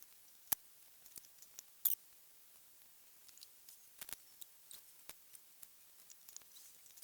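Scattered faint clicks and light taps of small parts and hand tools being handled during engine-block stripping, with two sharper clicks in the first two seconds.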